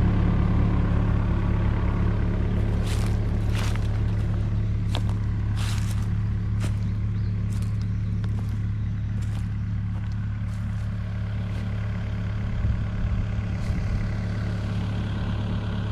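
Excavator's diesel engine running steadily, with a few sharp snaps and clatters about three to seven seconds in.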